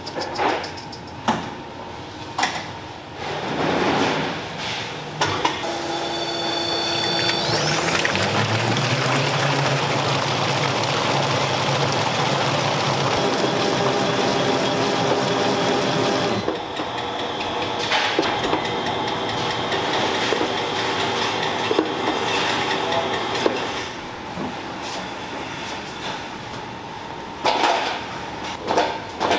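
Commercial planetary mixer with a wire whisk whipping eggs and sugar in a large steel bowl. A few metal knocks come first; about seven seconds in the motor spins up with a rising whine, then runs steadily. It eases off in the last few seconds, where more knocks of the steel bowl are heard.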